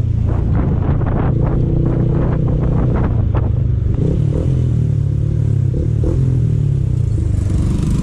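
Motorcycle engine running, heard from the rider's seat, its pitch rising and falling with the throttle as it rides slowly through traffic. Wind buffets the microphone in the first few seconds.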